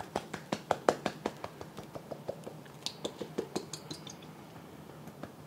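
Thick oyster sauce glugging out of a glass bottle into a glass measuring cup as air bubbles back into the bottle: a quick run of pops, about five a second, that thins out and stops after about four seconds.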